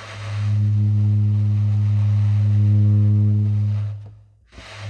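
Saxophone playing one long, low subtone note that imitates a ship's horn. The note swells in softly, holds steady for about four seconds and fades out.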